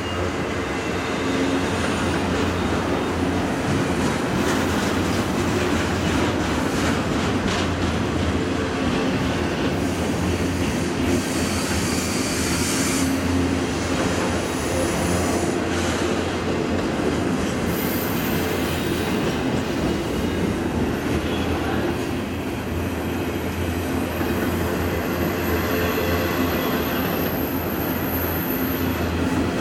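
Double-stack intermodal well cars rolling past steadily, a continuous rumble of steel wheels on rail with clickety-clack from the rail joints. A thin high wheel squeal on the curve comes and goes in the second half.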